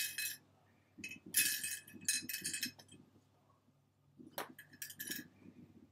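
Small plastic sewing clips clinking and rattling against a ceramic dish as a few are picked out, in several short bursts, with a sharp click a little after four seconds in as a clip is handled at the fabric.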